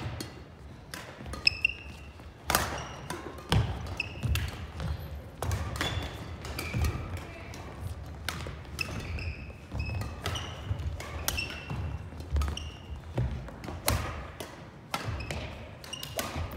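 Badminton rally on a hardwood gym court: sharp racket-on-shuttlecock hits about once a second, with footfall thuds and short shoe squeaks on the floor.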